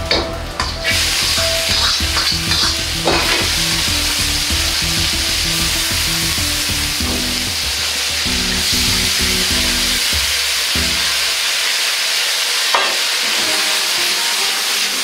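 Diced chicken and potato sizzling in hot oil in an iron wok over a high gas flame, stirred with a metal ladle. The sizzle jumps up about a second in as the ingredients go into the oil, then holds steady, with an occasional knock of the ladle against the wok.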